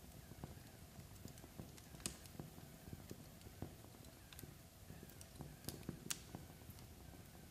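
Log fire crackling faintly, with irregular small pops over a low rumble and a few sharper snaps about two seconds in and again near six seconds.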